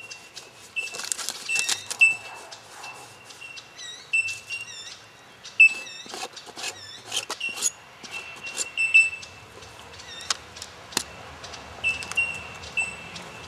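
Birds chirping with short, repeated high notes, over sharp clicks and scrapes of paint being worked across a board. The loudest clicks come about two, five and a half, and nine seconds in.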